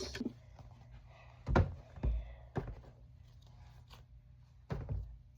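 A few soft thuds and knocks as squishy toys are put into a storage container.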